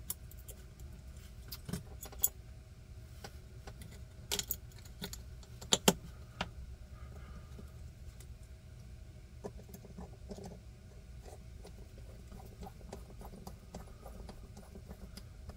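Small metal clicks and clinks as a Hogue Deka folding knife is put back together: the pivot is fitted and screwed down with a small driver, and the parts and tool tap against each other. The sharpest clicks come in a cluster between about two and six seconds in, followed by lighter ticking.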